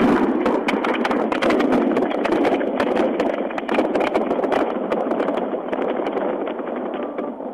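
Noise of a large crowd: many voices clamouring at once, with scattered sharp hand claps, growing a little quieter near the end.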